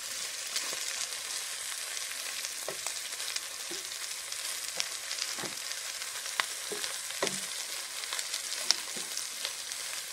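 Diced pork belly and mushrooms sizzling as they fry in a pan, with a spatula scraping and knocking against the pan now and then as they are stirred.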